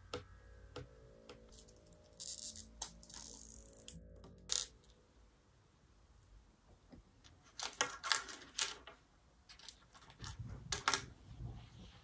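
Light clicks, taps and small rattles of small plastic items and tools handled on a tabletop. They come in a few short clusters, the busiest about eight and eleven seconds in.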